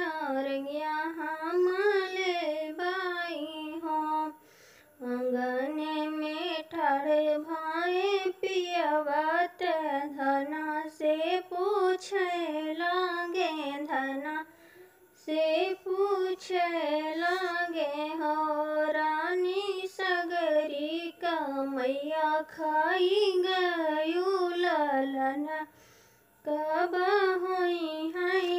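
A woman singing a sohar, a traditional folk song for a child's birth, solo and without accompaniment, in long wavering melodic phrases with three short breath pauses between them.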